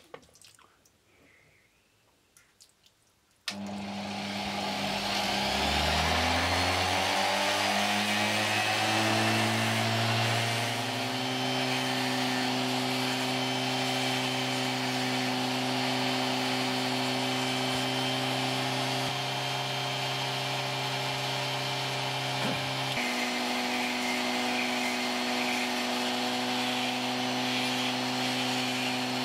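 Dremel-type rotary tool switched on about three and a half seconds in. Its whine rises in pitch over several seconds as it speeds up, then it runs steadily while a small diamond ball burr grinds into wet Welsh slate.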